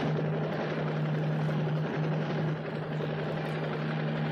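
Helicopter in flight, its engine and rotor running with a steady hum on one constant low tone.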